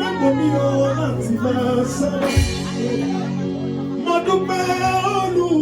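Live gospel worship singing with band accompaniment: a solo voice sings a wavering melody over sustained bass notes, with one low drum thump about halfway through.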